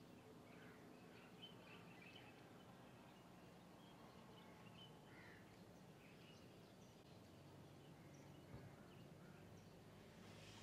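Near silence: faint outdoor ambience with scattered, distant bird chirps and a faint low hum.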